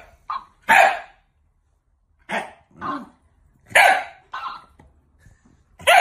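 Shiba Inu barking in short single barks, about seven of them at uneven gaps.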